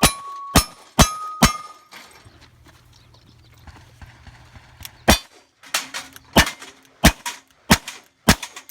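Gunshots from a cowboy action shooting stage. Four quick shots each leave a short metallic ring from the steel targets they hit, then after a pause of about three seconds a second string of about six shots follows.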